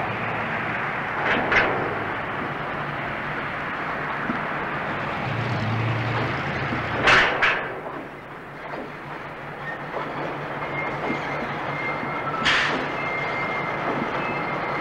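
Southern Railway diesel locomotive moving slowly past, its engine and wheels giving a steady rumble, with a few sharp metallic clanks along the way and a faint high whine setting in near the end.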